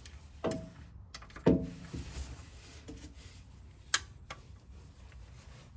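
Torque wrench working the transmission pan bolts: two ringing metallic clanks in the first two seconds, the second the louder, then a few sharp clicks.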